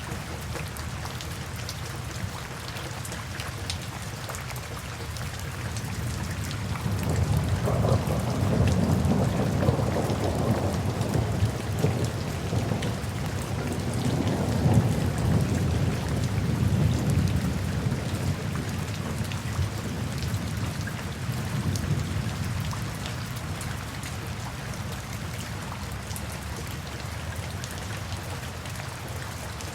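Steady rain falling, with a long roll of thunder that builds about a quarter of the way in, peaks through the middle, and fades away before the end.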